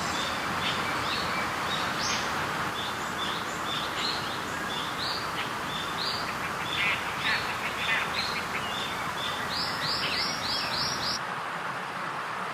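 Small birds chirping over a steady outdoor hiss: short repeated chirps, with a quick run of five near the end before the sound cuts off.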